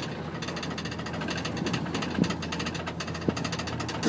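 Excursion boat's engine running steadily, a low hum under a rapid, even rattling pulse.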